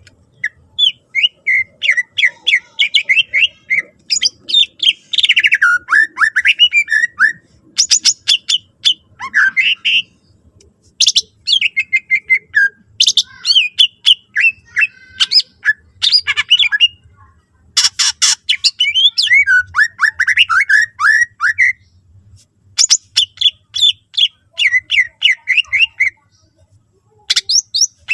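Cucak ijo (green leafbird) singing a fast, varied song of quick chirping runs, broken several times by sharp, harsh bursts. This is the loud, mimic-filled song that keepers play to provoke other leafbirds into singing.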